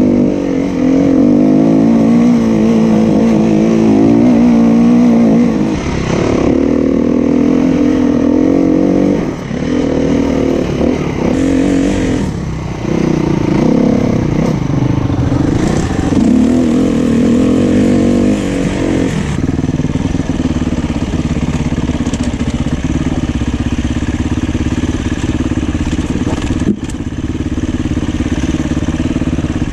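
SWM 300RS enduro motorcycle's single-cylinder four-stroke engine being ridden off-road, its pitch rising and falling as the throttle opens and closes, with brief drops in revs twice around the middle. One sharp knock sounds near the end.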